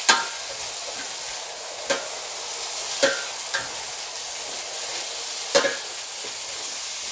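Spoon stirring vegetables in a stainless steel pot, knocking sharply against the pot's side a handful of times at irregular intervals. Underneath is the steady sizzle of food frying.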